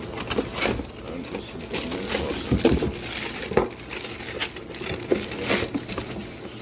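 Packaging being handled while a new faucet's box is unpacked: rustling and crinkling with irregular small clicks and knocks.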